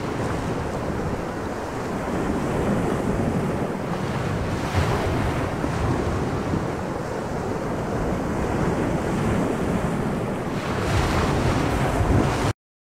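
Steady rushing of wind and sea waves, a dubbed sound-effect bed, cutting off abruptly near the end.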